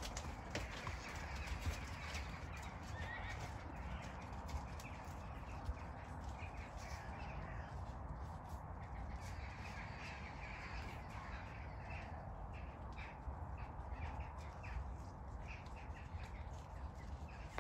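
Welsh Section D mares moving about a muddy grass paddock, their hooves thudding on soft ground, while crows caw. A steady low rumble runs underneath.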